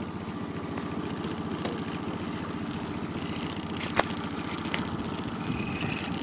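Small tiller outboard motor running steadily at low speed, a low hum, with one sharp click about four seconds in.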